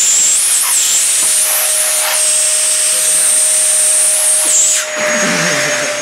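A small hand-held electric air device, like a mini vacuum or blower, held against a man's cheek. It runs with a loud rushing hiss, a steady whine, and a high whistle that wavers as it moves over the skin. The whistle stops a little before five seconds in.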